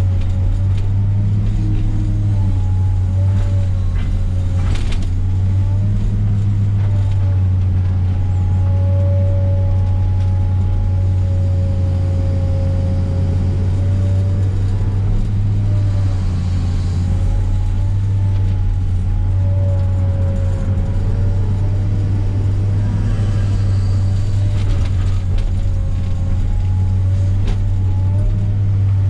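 Komatsu PC300 excavator's diesel engine running steadily under load, with a whine from the hydraulics that rises and falls in pitch as the machine works.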